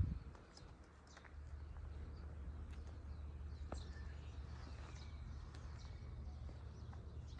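Outdoor ambience: a steady low rumble with faint bird calls and a few small ticks over it. A brief low thump comes right at the start.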